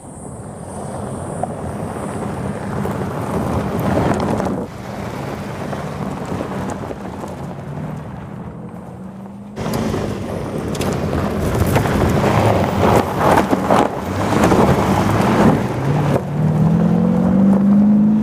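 Audi SQ7's V8 diesel engine running hard and its tyres rumbling and crunching over a loose gravel dirt track as the SUV drives fast past the microphone, with stones clattering under the wheels. Near the end the engine note rises as it accelerates.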